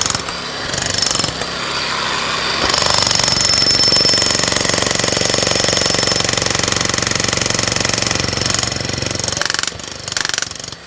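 Rapid, continuous jackhammer-style hammering from a pneumatic percussion tool, which breaks off about a second before the end.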